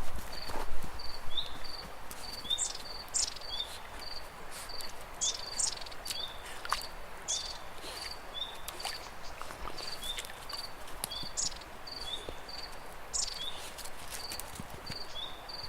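Outdoor natural ambience: a high, short chirp repeats steadily about twice a second, with scattered higher chirps and a few faint clicks over a soft background hiss.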